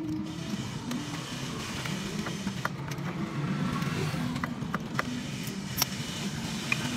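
A steady low engine-like hum throughout, with a few sharp metallic clicks and clinks as an oil filter is worked by hand under the truck.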